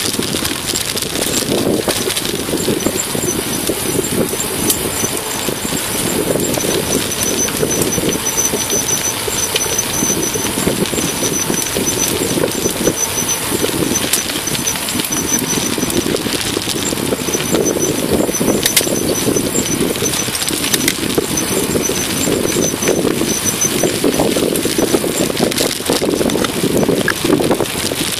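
A mountain bike rolling down a gravel road, heard from a handlebar-mounted camera: steady tyre and frame rumble over the gravel with wind noise on the microphone. A thin, high squeal comes and goes.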